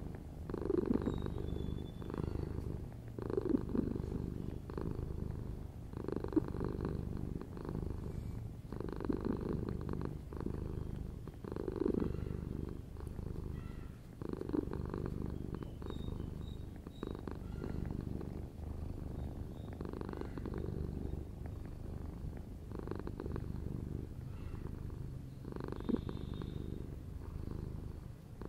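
Calico cat purring steadily, recorded up close, the purr swelling and easing in a slow regular cycle about every three seconds.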